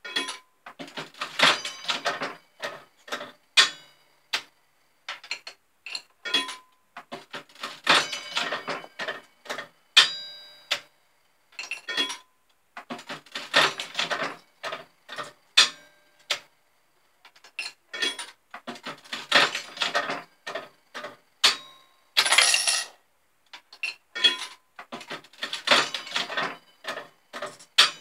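Aristocrat Arcadian mechanical slot machine being played over and over: a handle pull sets the reels spinning in a burst of rapid clattering clicks that ends in the clunks of the reels stopping, about five plays with short pauses between. A few short metallic rings sound among the clicks.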